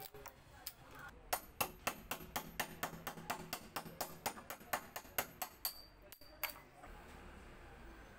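Hammer tapping quickly and repeatedly at a rusty nail in a wooden bench backrest to work it loose. About four sharp strikes a second for some five seconds, then one last strike.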